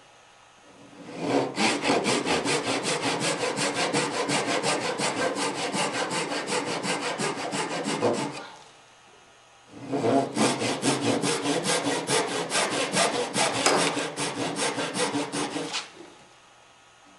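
Hand saw cutting dovetail tails in a wooden foot support, in two runs of quick, even strokes with a short pause between them.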